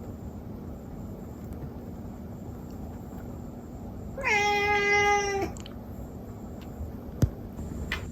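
A house cat meowing once: one drawn-out meow of a little over a second that dips in pitch at the start, then holds steady. A single short click near the end.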